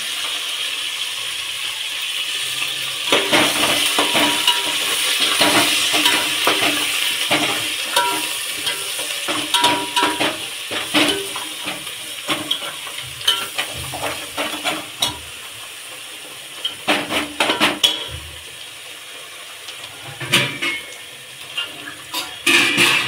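Cooking in a pot: a steady sizzle, strongest at first and fading away, with metal utensils clinking and knocking against pots and pans throughout.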